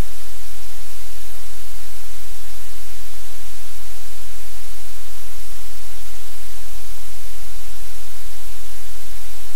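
Loud, steady hiss like static, with no other sound standing out above it.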